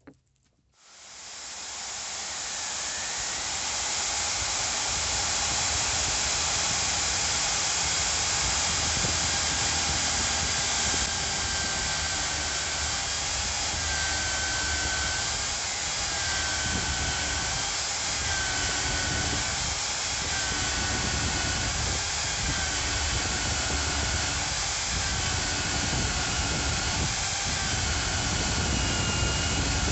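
Electric drill in a drill stand boring a wide hole into a clamped wooden block: the motor and cutting build up about a second in and run steadily, with a whine that dips about every two seconds as the bit bites into the wood.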